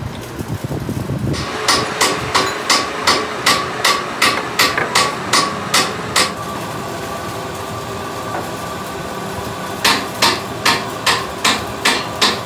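Hammer blows on metal, struck by hand at a steady pace of about three a second, each blow ringing. A run of about a dozen blows, a pause of a few seconds, then another run of about seven near the end.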